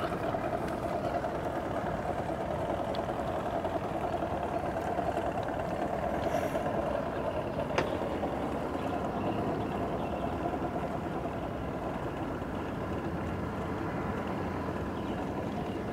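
Small outboard motor on a skiff running at low speed, a steady hum that eases off about halfway through. A single sharp click a little past halfway.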